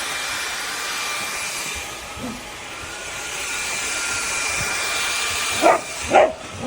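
A cordless stick vacuum cleaner's motor running with a steady hiss and high whine, easing slightly about two seconds in. Near the end a dog barks twice.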